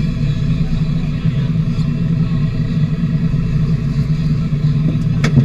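Fishing boat's engine running steadily with a low drone, and a single sharp knock near the end.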